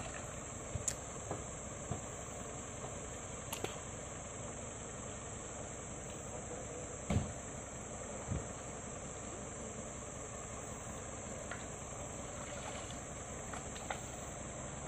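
Mitsubishi Strada Triton pickup's engine idling steadily while the truck sits bogged in mud, under a constant high-pitched drone. A few dull thumps from digging in the mud come through, the loudest about seven seconds in.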